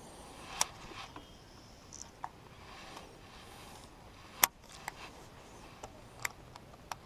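A handful of sharp, irregular clicks and light knocks from a baitcasting rod and reel being handled after a cast, over faint hiss. The loudest click comes about four and a half seconds in.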